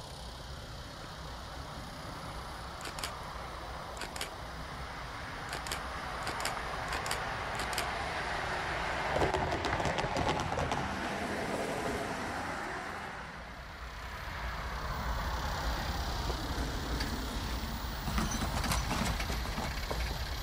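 Diesel freight locomotive approaching, its engine and wheels rumbling louder toward the middle, with scattered sharp clicks early on. The sound dips about two-thirds of the way in, then gives way to a steady low rumble.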